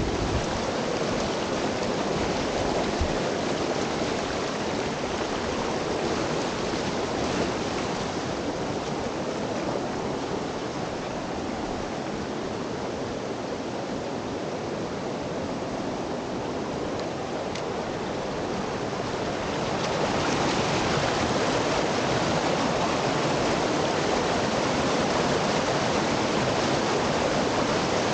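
Whitewater of a waterfall rushing steadily over rock, close by. It grows louder and brighter about twenty seconds in.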